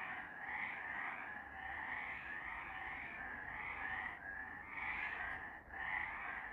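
A chorus of several frogs calling together. Their overlapping calls pulse steadily, about once every half second or so.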